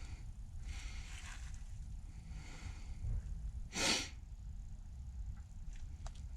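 A person's breathing in soft noisy puffs, with one short, loud, sharp exhalation a little before four seconds in, over a low steady rumble.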